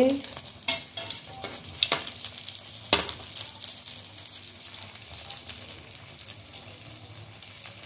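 Breaded chicken and vegetable cutlets shallow-frying in hot oil in a pan: a steady crackling sizzle. A few sharp clicks of a metal spatula against the pan come in the first three seconds, the loudest about three seconds in.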